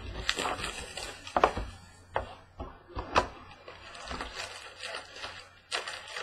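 Cardboard trading-card hobby box being handled and opened, with rustling and a few sharp taps and knocks as the foil packs are pulled out. A louder rustle comes near the end.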